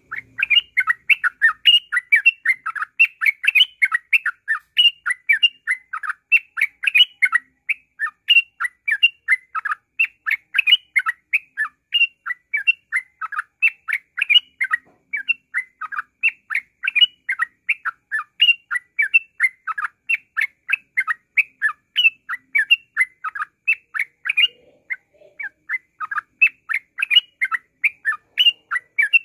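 Yellow-vented bulbul (trucukan) singing 'ngropel', a fast, unbroken run of short falling notes at about three to four a second. The notes go softer briefly about three-quarters of the way through.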